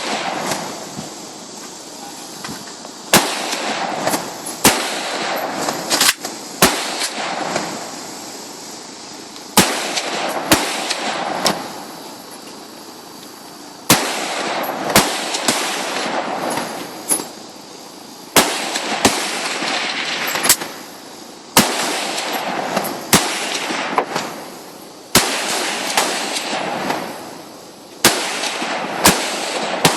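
Rifle shots at a shooting range: many single shots at irregular intervals, sometimes two in quick succession, each followed by a long echoing tail.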